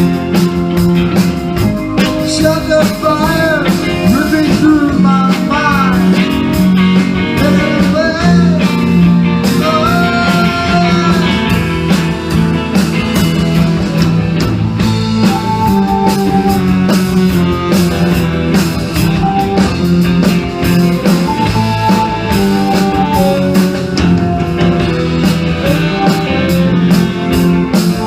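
Rock band playing, with a guitar lead bending notes up and down over bass and drums.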